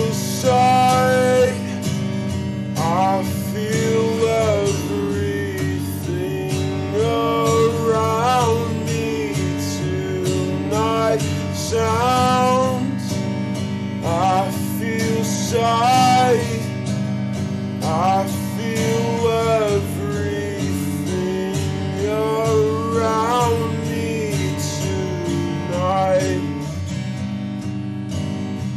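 Slowed-down song: strummed acoustic guitar under a gliding, wavering melody line, with no sung words.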